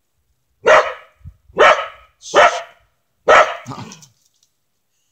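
Corgi barking four times, a little under a second apart, at a squirrel up in a tree.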